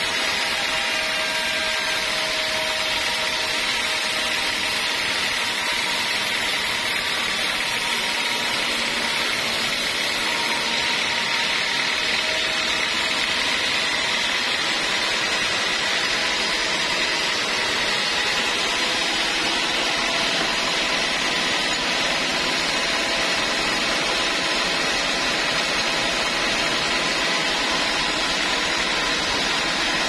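Vertical band sawmill running steadily, its blade sawing through a teak log, a continuous loud machine hiss and hum with faint steady whining tones.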